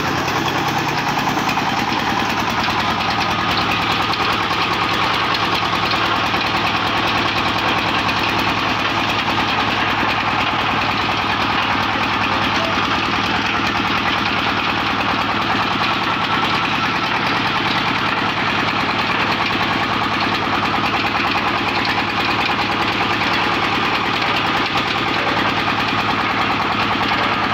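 Engine powering a water-well wash-boring rig and its mud pump, running steadily with a fast, even beat while the pump circulates water through the borehole.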